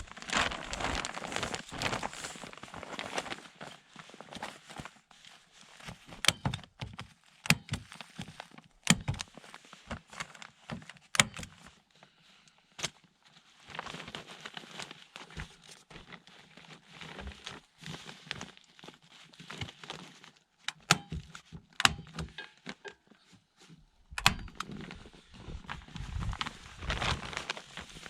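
Irregular sharp knocks and clicks, with spells of rustling and crunching near the start, in the middle and near the end.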